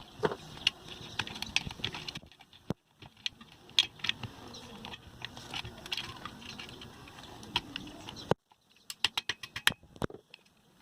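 Scattered light clicks and taps of hands and tools working on a ceiling fan's metal housing and fittings as it is taken apart, over a faint hum. The sound drops away abruptly a little after eight seconds, leaving a few more clicks.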